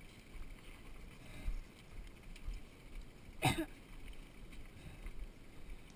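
Giant Glory downhill mountain bike rolling down a dry dirt trail: tyres crunching over dirt and leaves, low bumping rumbles and rattles from the bike, with wind on the microphone. One short, louder knock about three and a half seconds in.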